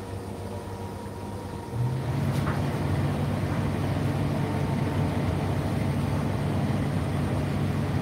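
Indesit IDC8T3 condenser tumble dryer running mid-cycle with a steady low hum. Nearly two seconds in the hum steps up and gets louder, with a single click shortly after, then runs on evenly.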